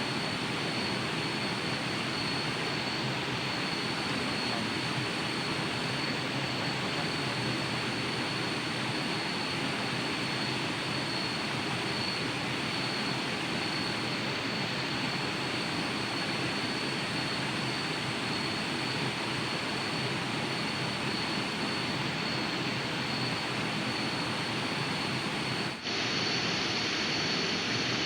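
Waterfall rushing: a steady, unbroken roar of falling water with a thin, steady high-pitched tone over it. It breaks off for a moment near the end and comes straight back.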